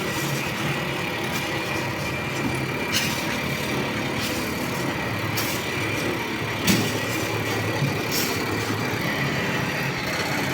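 A steady, engine-like mechanical hum with a thin high whine and a few scattered clicks.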